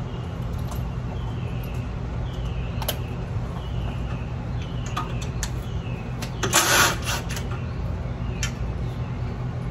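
Clicks and metallic taps of a cordless drill-driver working a screw on an air compressor's electric motor cover, with a short burst about two-thirds of the way through, over a steady low hum.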